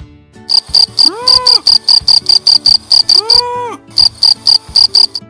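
Insect chirping: a loud cricket-like run of rapid, even, high-pitched pulses, about six a second, broken by a short pause, with two drawn-out calls that rise, hold and fall about a second and three seconds in.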